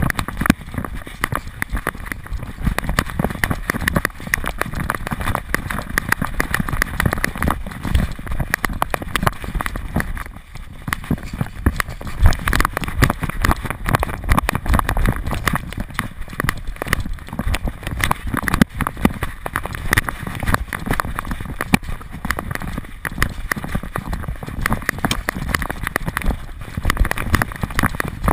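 A dog running over grass, heard through a GoPro HD Hero2 that it is wearing: a fast, dense patter of paw strikes and knocking as the camera jolts with each stride, easing briefly about ten seconds in.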